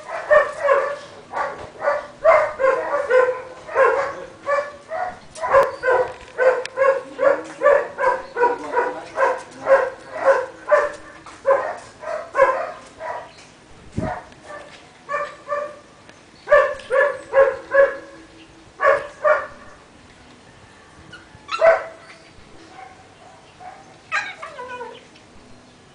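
Puppy barking at play: fast, high-pitched barks at about two a second for the first half, then in shorter bouts with pauses. A single thump about halfway through.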